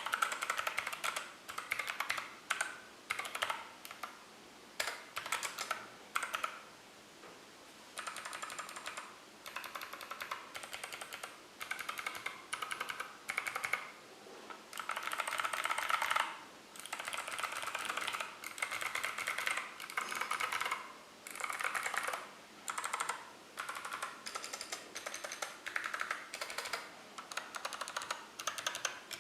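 Mechanical keyboard with Kailh Box Pink clicky click-bar switches and PBT Cherry-profile keycaps being typed on in fast runs of crisp clicks, broken by short pauses between words and phrases.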